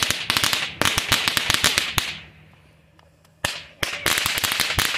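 Small consumer fireworks crackling: a dense, rapid string of sharp pops that breaks off for about a second midway, then starts up again just as thick.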